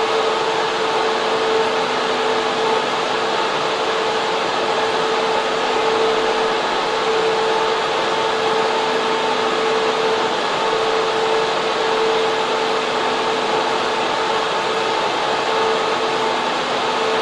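Data center server room with its cooling fans and air handling running: a steady, loud rushing hiss with a constant hum tone underneath.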